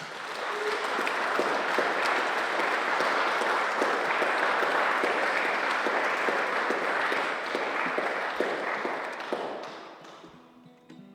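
Audience applauding at the end of a song. The clapping swells over the first second, holds steady, then dies away about ten seconds in.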